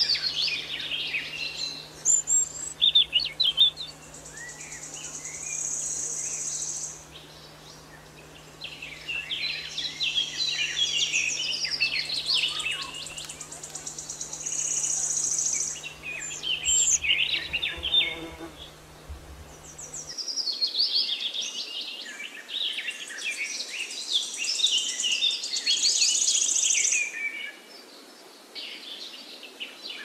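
Mixed birdsong: several small birds chirping and twittering in waves, with quieter gaps between, and a high thin buzzing trill that comes and goes. A faint low hum underneath stops about two-thirds of the way through.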